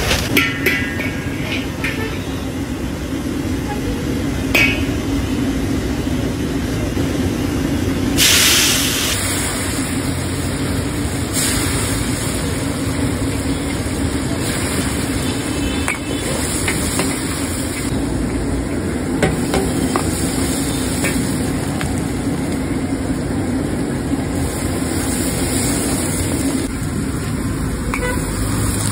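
Street-stall wok cooking over a gas burner: a steady burner noise with frying sizzle, and a ladle knocking and scraping on the wok. A sudden loud burst of hiss comes about eight seconds in.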